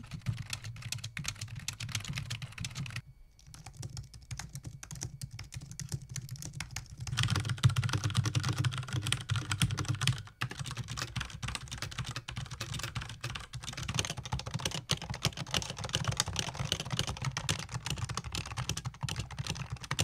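Fast touch-typing on several keyboards in turn, a few seconds of dense keystroke clatter on each with brief breaks between. The keyboards include a low-profile Apple keyboard and, for the second half, a black HHKB with Topre switches. The loudest stretch comes between about seven and ten seconds in.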